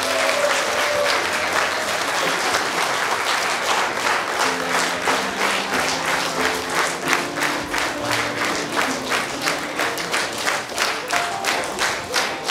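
Audience applauding over background music; from a few seconds in the clapping falls into a steady beat in unison, about three claps a second.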